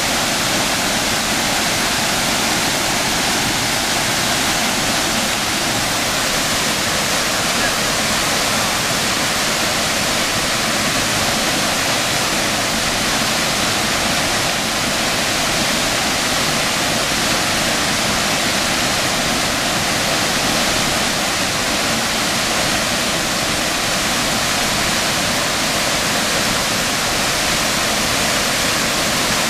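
Tall waterfall pouring over a cliff and cascading down across rocks: a steady, unbroken rush of falling water.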